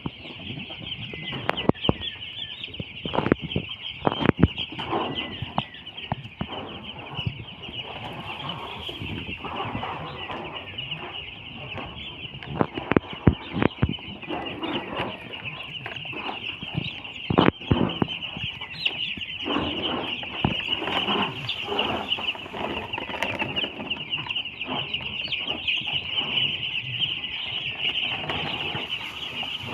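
A crowd of two-day-old broiler chicks peeping continuously, their high chirps blending into one steady chatter. A few sharp knocks stand out now and then, the loudest at about 4, 13 and 17 seconds in.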